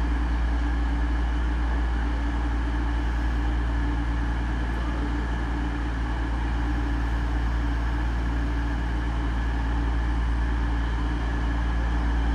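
Class 222 Meridian diesel-electric multiple unit standing at the platform with its diesel engines idling: a steady low hum with a few held tones, unchanging throughout.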